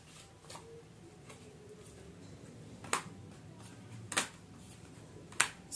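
A few sharp clicks, about a second or so apart, of tarot cards being handled and set down on a tabletop, over a faint low hum.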